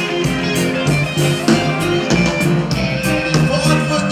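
Live reggae band playing: electric guitars, keyboards and a drum kit keeping a steady beat.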